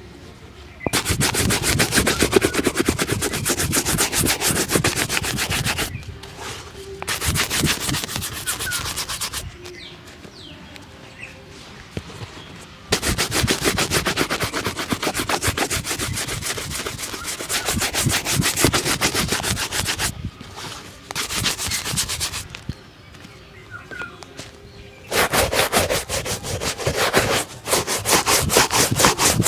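Shoe-shine brush scrubbing a shoe in fast back-and-forth strokes, in several bursts of a few seconds each with short pauses between.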